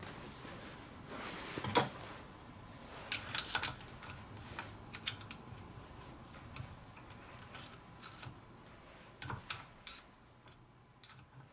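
Scattered light clicks and taps of a small hand tool working at the governor gear and its retaining clip in an engine's aluminium side cover.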